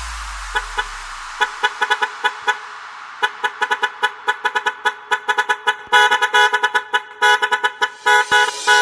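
Truck air horn sounded in short rhythmic blasts, set as stabs in an electronic music breakdown. The blasts start sparse and come thick and fast about six seconds in.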